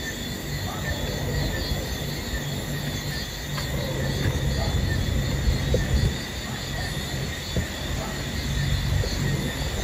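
Insects chirping in a steady, evenly pulsing rhythm over a constant low rumble.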